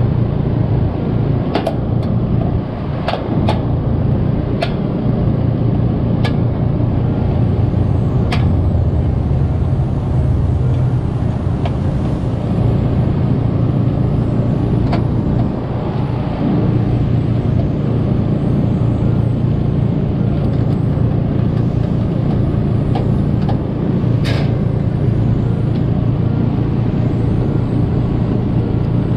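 Screwdriver work on an AC condenser's capacitor mount: a handful of sharp metal clicks and taps, spread out, over a loud steady low hum from an unidentified source.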